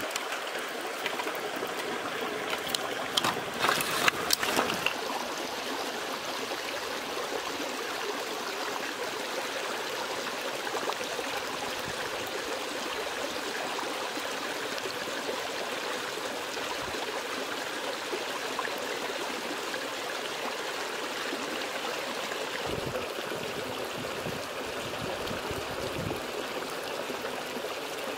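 Steady rush of flowing stream water, with a few sharp clicks about three to five seconds in.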